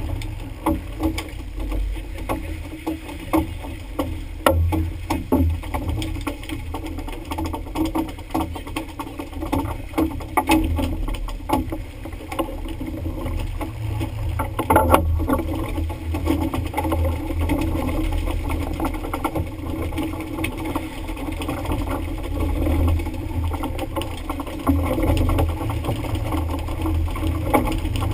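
Fishing boat at sea: a steady low rumble of the engine with wind and water noise, broken by scattered knocks and splashes, a few of them louder about four, ten and fifteen seconds in.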